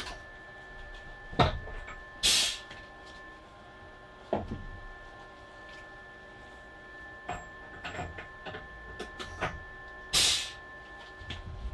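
Steel workpieces handled by hand in a milling-machine vise: scattered metallic knocks and clicks. Two short hissing bursts, about two seconds in and near the end, are the loudest sounds.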